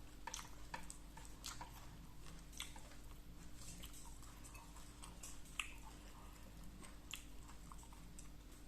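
A person quietly chewing a mouthful of rice and koi khom, with small irregular wet mouth clicks.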